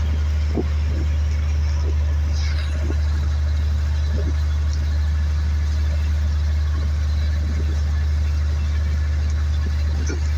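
Fishing boat's inboard engine running steadily under way, a constant low drone, with the hiss of water rushing past the hull and a few faint knocks.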